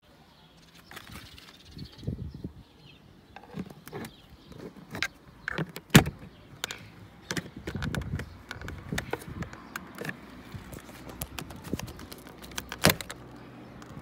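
Irregular sharp plastic clicks and knocks as the fuse panel cover on the driver's end of a VW Passat B5 dashboard is pried loose and handled, with two louder snaps, about six seconds in and near the end.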